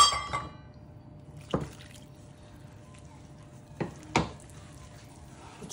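A sharp metal clink with a short ring at the very start, from a steel utensil, then a few soft knocks and light handling sounds as water is worked into flour by hand in a plastic bowl.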